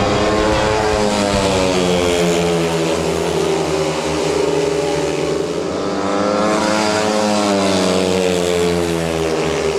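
Several speedway bikes racing together, their 500 cc single-cylinder methanol engines at full throttle. The engine note falls and climbs again twice as the riders go through the turns.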